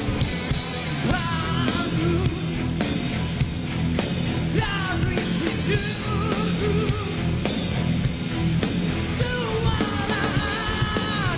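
Live rock band playing, with drums, bass and guitars under a male lead singer's rock vocal.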